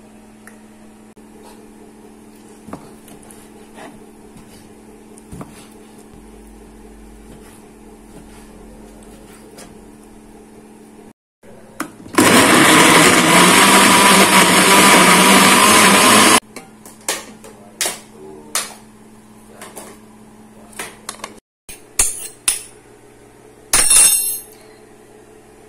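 Electrolux countertop blender running for about four seconds about halfway through, grinding raw chicken pieces into meatball paste. It starts and stops abruptly. Around it there is a steady low hum with light household clicks and knocks.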